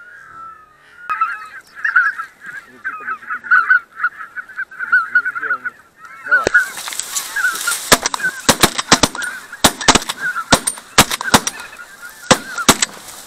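A flock of wild geese calling as they fly over, many overlapping honking calls in quick succession starting about a second in. From about six seconds in, a rustling rush with many sharp cracks joins them, as dry reed stems brush against the camera.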